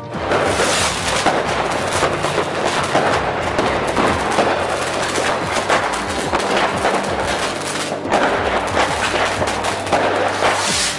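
Fireworks going off: a dense, unbroken barrage of cracks and bangs from rockets bursting, thinning briefly about eight seconds in.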